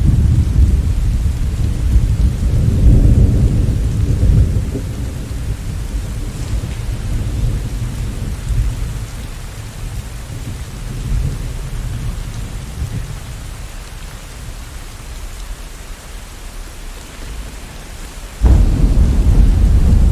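Steady rain with rolling thunder. A deep rumble in the first few seconds slowly dies away, then a new loud peal of thunder breaks in suddenly near the end.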